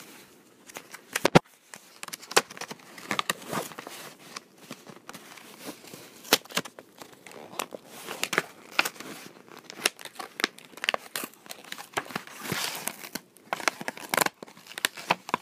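Toy packaging being pulled and torn open by hand: a long run of irregular crackling, tearing and crinkling of cardboard and plastic.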